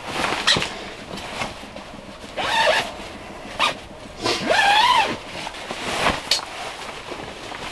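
Sleeping bag zipper being run, two long zips about two and a half and four and a half seconds in, their pitch rising and falling with the pull. Between them, nylon fabric rustles as the bag is shaken out and spread on a camp cot.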